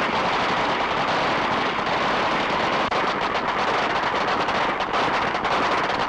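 Rapid, continuous gunfire from agents shooting at targets on a firing range, dense and crackling under heavy old-soundtrack hiss.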